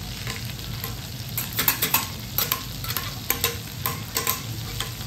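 Butter sizzling on a steel teppanyaki griddle as it is browned, with metal spatulas scraping and clicking against the plate. From about a second and a half in the spatulas chop down repeatedly, giving several sharp clicks a second.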